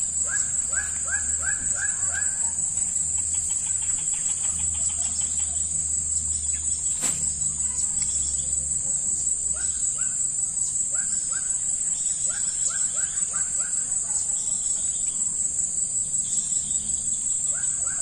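Steady high-pitched insect chorus, with a bird calling in runs of short falling notes, about three a second, that come and go several times.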